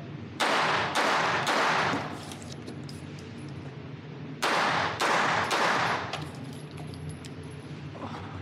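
A Glock 19 9mm pistol with a muzzle compensator firing two quick strings of about three shots each, roughly half a second apart. One string comes about half a second in and the other about four and a half seconds in. Each report rings with the echo of an indoor range.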